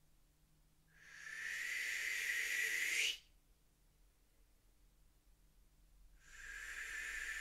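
A person making two long, breathy hisses like slow blown-out breaths, each lasting two to three seconds. Each swells in and cuts off sharply, with a pause of about three seconds between.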